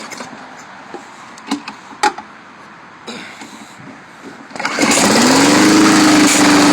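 A few clicks and knocks, then about two-thirds of the way in a lawn mower's small petrol engine starts just after priming, picks up speed and settles into a steady run.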